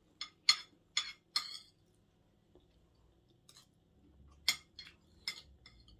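Metal spoon clinking against a ceramic dinner plate in short sharp taps: four within the first second and a half, then a few more near the end.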